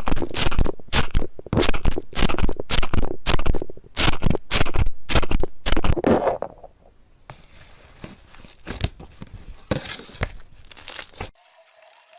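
Slime being squished and worked, giving a fast run of sticky clicks and pops for about six seconds. It then goes quieter with a few scattered pops, and the sound cuts off abruptly about eleven seconds in.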